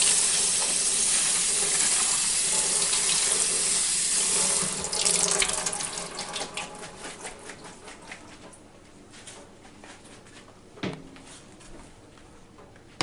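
Kitchen faucet running into the sink while cut lettuce is rinsed, shut off about five seconds in. It is followed by scattered light clicks and splashes as the wet lettuce is handled, and one knock near the end.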